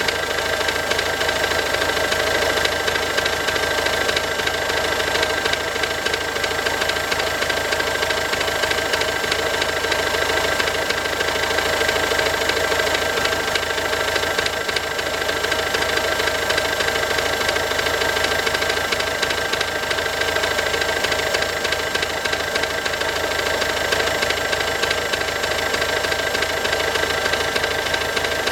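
Ford 1.6 TDCi four-cylinder diesel engine running steadily at idle with a rapid knocking rattle and a steady high whine: the bad sound the owner takes as a sign of an engine problem.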